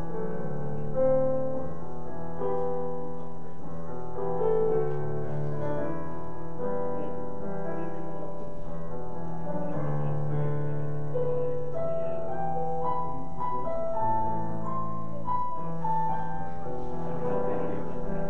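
Slow keyboard music: held chords with a melody line on top that steps upward in the second half.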